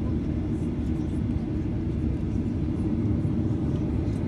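Jet airliner cabin noise while taxiing on the ground: a steady low rumble of the engines at idle and the rolling airframe, heard from inside the cabin.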